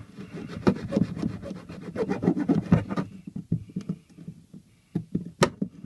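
Metal file rasping in quick, uneven strokes against the end of a water-supply pipe, cleaning off shavings so a SharkBite push-fit fitting will seal. The strokes thin out after about three seconds, with a couple of sharp knocks near the end.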